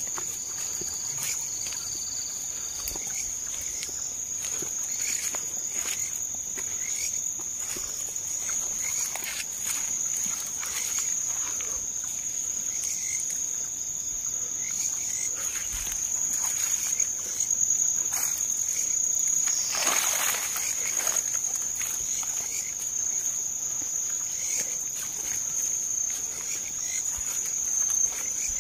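A steady, high-pitched drone of night insects, held without a break, with scattered rustles and steps through undergrowth. A louder brushing rustle comes about twenty seconds in.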